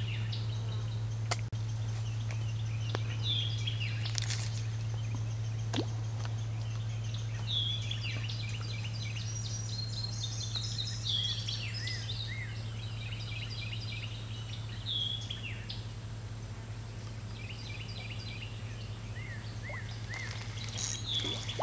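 Songbirds chirping and singing, with many short whistled notes and a few repeated swooping calls, over a steady low hum. A couple of faint clicks sound in the first few seconds.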